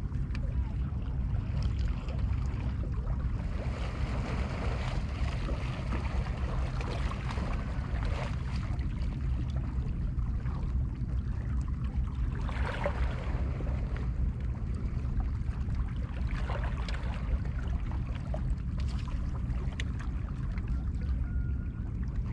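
Sea water washing against the rocks of a breakwater, swelling into a few hissy surges, over a steady low rumble.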